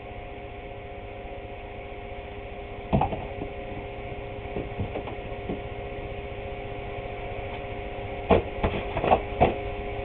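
Wooden trim boards knocking as they are handled on a countertop: one sharp knock about three seconds in, a few lighter ones after it, and a quick run of four near the end, over a steady hum.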